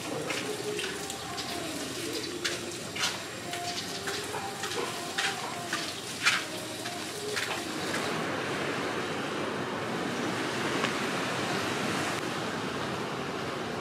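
Water from a garden hose splashing as a horse is hosed down, with scattered sharp taps and knocks. About eight seconds in this gives way to a steady rush of sea surf at the beach.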